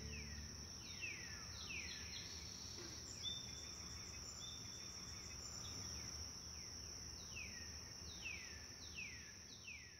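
Faint outdoor nature sound: a steady high-pitched insect trill, with a bird giving quick downward-sliding call notes a few at a time, several near the start and again near the end, over a low background rumble.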